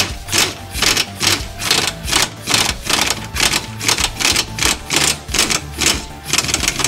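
Ratchet wrench clicking in quick back-and-forth strokes, about three a second, undoing a front suspension (wishbone) bolt. Background music plays underneath.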